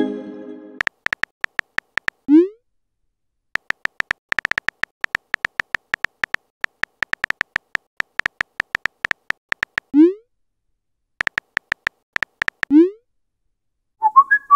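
Simulated phone-keyboard typing from a texting-story app: runs of quick tapping clicks, broken three times by a short rising pop as a message is sent. There is a brief tone at the very start and a few short high tones near the end.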